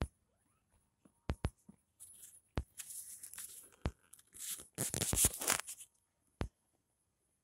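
Close rustling and scuffling of bedding and handling noise in two stretches, the second and louder one about four and a half seconds in, with several sharp clicks scattered through.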